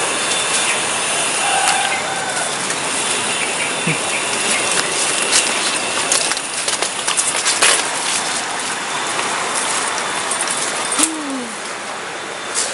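Footsteps and rustling of people walking a dry, leaf-littered dirt path, over a steady hiss, with a run of sharp clicks and crackles about six to eight seconds in.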